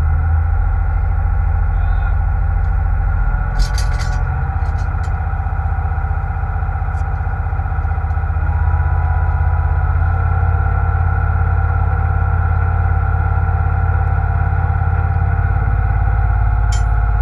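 Seine boat's engine running steadily, a low pulsing drone with a steady high whine over it; it grows slightly louder about eight or nine seconds in. A few short clanks about four to five seconds in.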